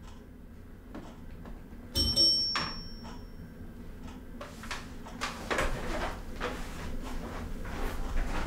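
A single bright bell-like ding about two seconds in, ringing on for a second or so as it fades. From about halfway through come irregular knocks and scrapes of a wooden kitchen chair being pushed back and footsteps as a man gets up from the table.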